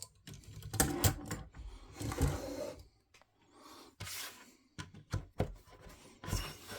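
Irregular clicks, knocks and scraping as a KME sharpening stone and its holder are handled while the stone is being changed, with the sharpest knocks about a second in, a little after two seconds, and shortly before the end.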